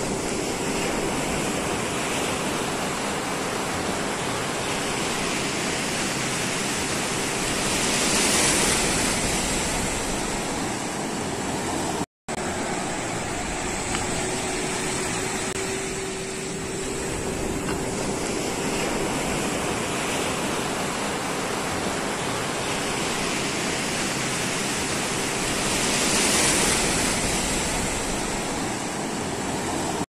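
Ocean surf washing on a beach: a steady rush of water noise that swells as a wave breaks about eight seconds in and again late on, with a very brief cut-out about twelve seconds in.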